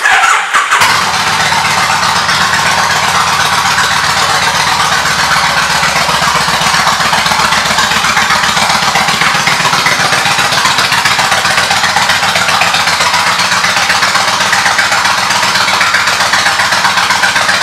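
1997 Kawasaki VN1500 Vulcan Classic's V-twin engine, breathing through Vance & Hines straight pipes, starting and within about a second settling into a loud, steady idle with an even exhaust pulse.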